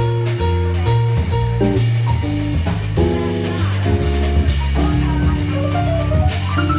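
Live small jazz combo playing: electric archtop guitar, drum kit with cymbals and keyboard over a moving bass line. Near the end a run of falling notes is heard.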